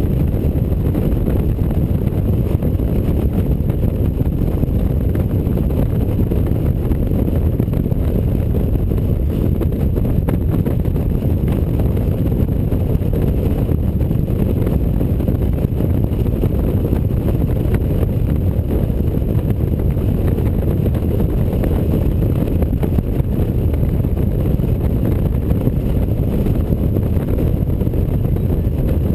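Steady rush of wind over the microphone mixed with the engine and tyre noise of a touring motorcycle cruising at highway speed; a low, even rumble with no changes.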